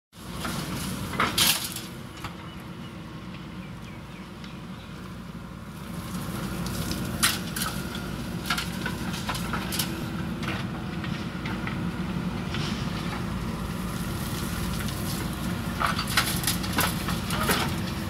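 JCB backhoe loader's diesel engine running steadily under hydraulic load while its backhoe bucket dumps soil into a steel tractor trailer. Sharp clanks and knocks of earth and stones hitting metal come as a loud cluster about a second and a half in, a few single knocks in the middle, and another cluster near the end.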